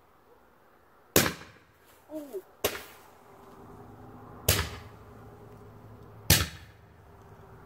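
World Class Fireworks 10-ball Roman candle firing: four sharp pops about one and a half to two seconds apart, each one a star being shot out of the tube.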